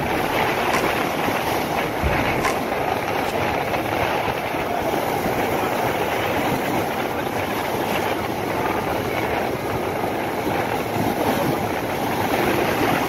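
Rough sea surf breaking and churning against rocks: a steady rush of water noise, with a few faint clicks.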